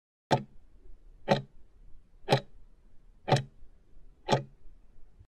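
Countdown-timer ticking sound effect: five clock-like ticks about one second apart, marking the last seconds of the countdown.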